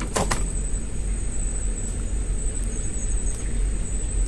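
A steady low rumble under a continuous high-pitched insect trill.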